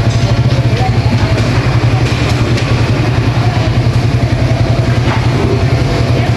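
A small motorbike engine running steadily close by, a loud low hum with a fast flutter, with scattered street clatter over it.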